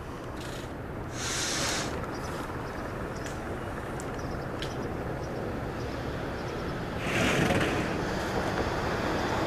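Distant helicopter flying overhead, heard as a steady rumbling noise. Two louder rushes of noise come through, one about a second in and one at around seven seconds.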